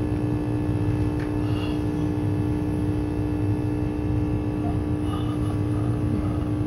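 Vacuum pump of a wafer probe station running: a steady hum with a low rumble beneath.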